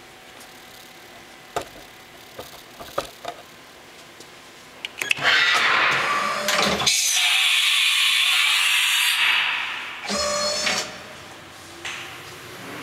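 Haas VF-2 CNC vertical mill releasing the tool from its spindle: a few light clicks, then a loud hiss of compressed air for about four seconds, followed near the end by a short rising motor whine.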